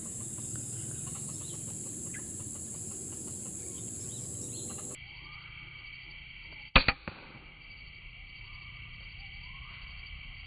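A single sharp air rifle shot about seven seconds in, with a fainter crack right after it. Steady high buzzing of insects underneath.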